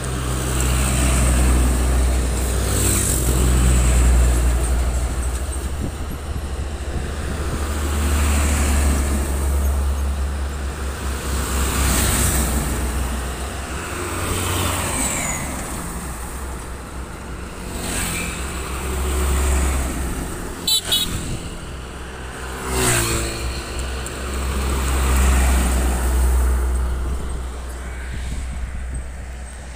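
A line of heavy diesel trucks driving past one after another, with a deep engine drone and tyre noise that swells and fades with each truck.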